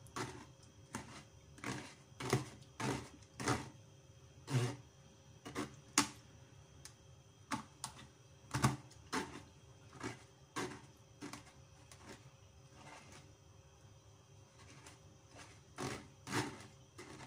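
Metal spoon scraping and tapping against a stainless steel wire-mesh strainer as it presses aloe vera gel through the mesh, in irregular strokes about one or two a second, with fewer strokes for a few seconds in the latter half.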